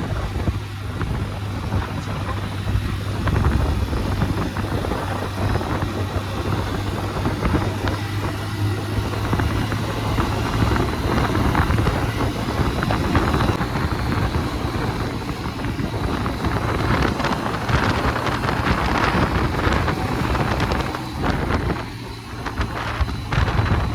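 Hero Splendor motorcycle being ridden, its engine running continuously under a rushing noise of wind on the microphone.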